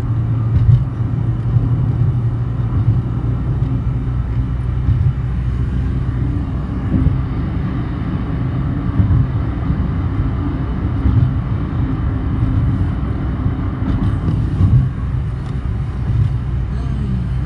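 A car's engine and tyres drone steadily from inside the cabin while it drives at road speed.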